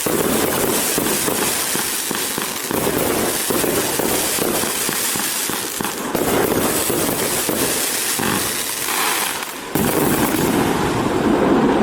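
Pyroworx Rapture 80-shot, 25 mm-tube firework barrage firing: a dense, continuous run of rapid bangs and pops from launches and aerial bursts. It eases briefly just before ten seconds in, then comes back suddenly and loud.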